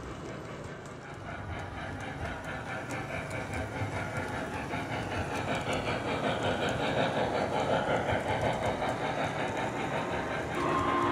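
Model Norfolk and Western streamlined steam locomotive running on three-rail O-gauge track, its running sound beating at about four a second and growing louder as it comes toward the camera. A steady tone comes in just before the end.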